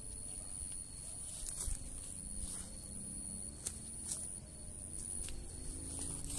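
Quiet outdoor background at a pond bank: a steady high-pitched whine that breaks off a few times, a low rumble, and about half a dozen faint clicks.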